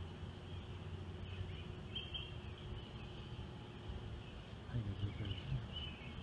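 Faint outdoor phone-microphone ambience: a steady low hum with a few short, faint bird chirps, and a brief louder low sound about five seconds in.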